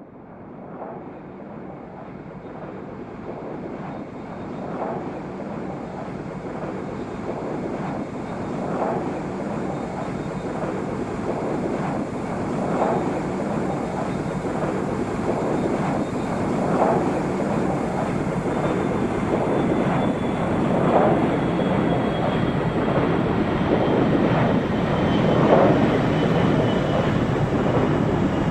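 Airplane approaching, its steady roar growing louder throughout, with a faint high whine slowly falling in pitch and swells about every four seconds.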